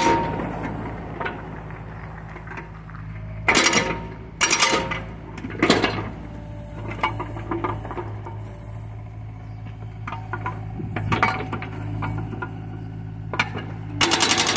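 Hydraulic breaker on a John Deere mini excavator hammering in short bursts of rapid strikes, about three and a half, four and a half and six seconds in, and starting again near the end. Between the bursts the excavator's diesel engine runs steadily, with lighter metallic clinks and knocks from the chisel.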